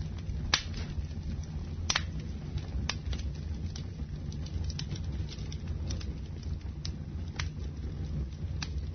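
Wood fire crackling in a fireplace: irregular sharp pops and snaps, the loudest about half a second and two seconds in, over a steady low rumble of the flames, with rain pattering.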